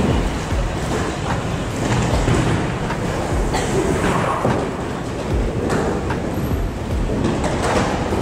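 Bowling alley noise: balls rumbling down the lanes, with several sharp clatters of pins being struck.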